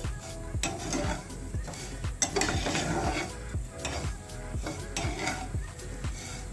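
A spatula scraping and stirring vermicelli as it toasts in ghee in a non-stick frying pan, with a light sizzle. Background music with a steady beat plays underneath.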